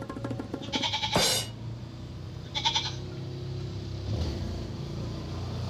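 Domestic goat bleating: two short calls, one about a second in and another a second and a half later, over a steady low hum.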